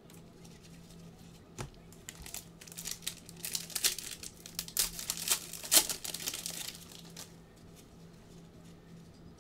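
Plastic trading-card pack wrapper being torn open and crinkled by hand, a dense crackling from about a second and a half in until about seven seconds, over a faint steady hum.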